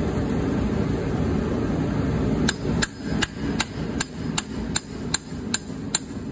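Hammer blows on metal, driving the transmission main shaft of an Allis-Chalmers WD tractor rearward to knock it loose: even, ringing strikes about two and a half a second, starting about two and a half seconds in. Before that, only a steady low rumble.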